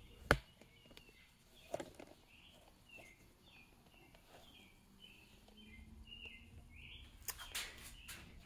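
Faint chirping, as of small birds, repeating several times a second. A sharp knock comes just after the start and a lighter one near two seconds in, and a rustle of handling comes near the end.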